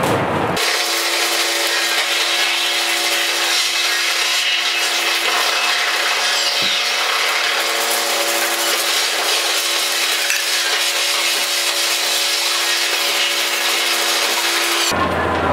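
Loud, harsh scraping noise from styrofoam and plastic rubbed against a contact-miked styrofoam sculpture, amplified and looped live. The bass cuts out suddenly about half a second in and comes back near the end, over a steady hum of several tones.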